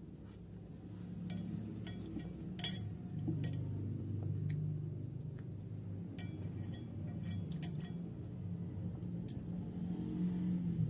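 Utensils clinking against a plate or dish: a scattering of sharp clinks, the loudest about two and a half seconds in, over a low steady hum.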